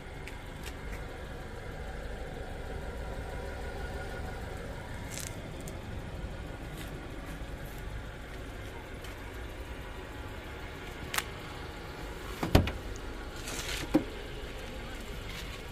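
Car door handle and latch clicking, with a sharp clack as the Subaru Pleo's front door is pulled open and another clack a second or so later, over a steady low rumble.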